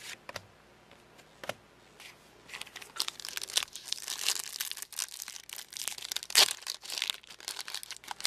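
A foil trading-card booster pack wrapper being torn open and crinkled. A few light clicks come first, then about five seconds of crackling, tearing and crinkling with one sharper rip near the end.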